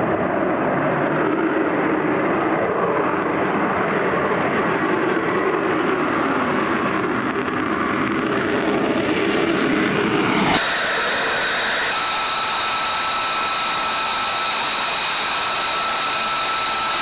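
Single F135 turbofan of an F-35A at high power, a broad steady roar as the jet lifts off and climbs away. About ten seconds in it cuts abruptly to a high, steady whine of an F-35 engine running on the ground.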